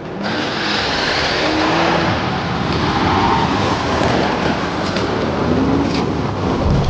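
Camouflaged Land Rover Defender OCTA prototype driven hard through snow: engine running under load with a dense, steady rush of tyres churning and throwing snow.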